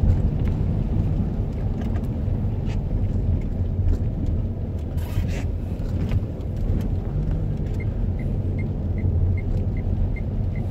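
Inside a moving car on a rain-soaked street: a steady low engine and road rumble, with tyres running on wet asphalt. Near the end the turn-signal indicator starts ticking, about two and a half ticks a second.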